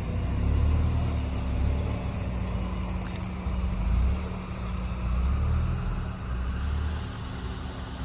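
A low rumble that swells and fades in uneven gusts, the kind wind makes buffeting a microphone outdoors.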